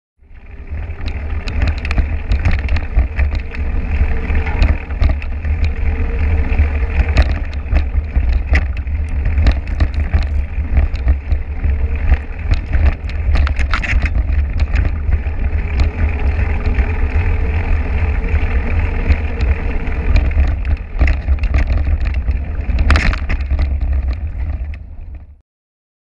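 Wind buffeting the microphone of an action camera mounted low on a moving mountain bike, over tyre noise on a dirt road and scattered sharp clicks and rattles from the bike. It starts abruptly and cuts off suddenly just before the end.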